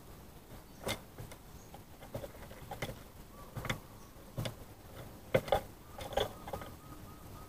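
Zebra dove pecking at seed in a feeding dish: irregular sharp taps and clicks of its beak on the grain and dish, about eight over the stretch, the loudest a quick pair about five and a half seconds in.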